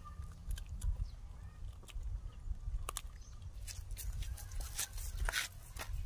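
Low rumble of wind on the microphone, with scattered light clicks and scrapes: a puppy gnawing on a hard object, then a small monkey's steps on gritty dirt. The clicks come most thickly in the second half.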